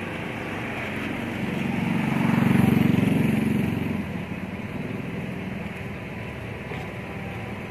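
Steady hum of a vehicle moving slowly, heard from inside it, with an engine growing louder about two to three seconds in and then fading away.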